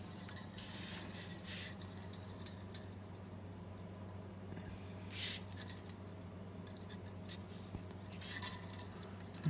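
Faint handling sounds: light rubbing and scuffing of hands and a small applicator on the plastic base and glass neck of a picture tube while silicone sealant is dabbed under the base's edge. A few soft scuffs come about a second in, about five seconds in and near the end, over a steady low hum.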